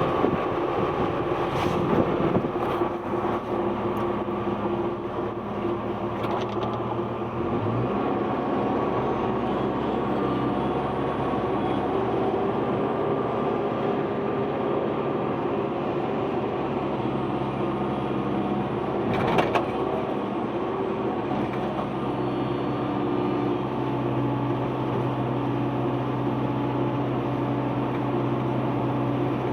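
Excavator engine running steadily under working load, with a few sharp metallic clanks early on and a louder knock about 19 seconds in; the engine note shifts up around 8 seconds.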